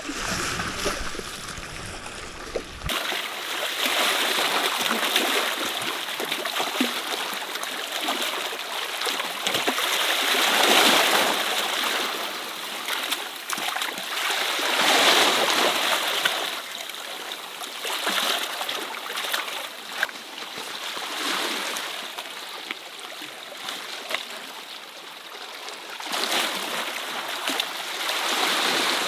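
Sea water washing and splashing over rocks, surging louder and falling back every few seconds as waves come in.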